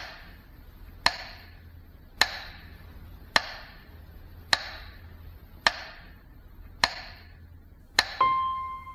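Sharp single knocks at a steady pace of about one a second, each with a short ringing tail, used as a sound effect over an intro. A held musical tone comes in near the end.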